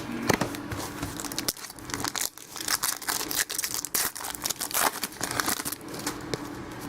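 A football trading-card pack wrapper being torn open and crinkled by hand, with a run of irregular crackling and rustling.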